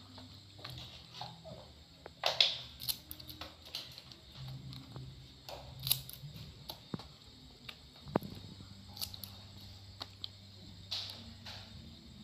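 Scissors snipping and wet squid being handled in a plastic bowl: scattered clicks and short squelching rustles, the loudest about two seconds in and again around six seconds.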